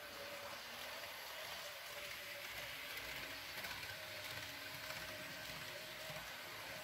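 Märklin model electric train running over C-rail track: a faint steady rattle of wheels on rail with a thin motor whine.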